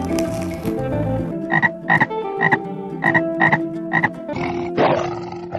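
Frog croaking in a quick series of short croaks, about two a second, starting about a second and a half in, over steady background music.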